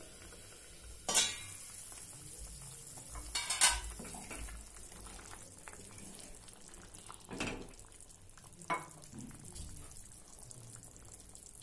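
Steel pot lid being lifted off a kadai of boiling soup, clanking sharply about a second in and again about three and a half seconds in; after that the soup bubbles at a steady boil with a couple of lighter knocks from a wooden spatula being used in the pot.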